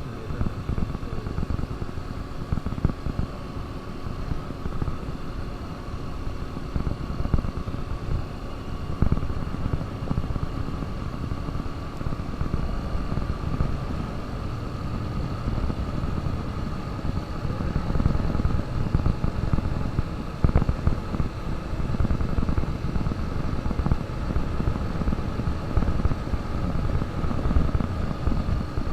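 KTM RC200's single-cylinder engine running at a fairly steady speed while the motorcycle is ridden, under a heavy, uneven low rumble.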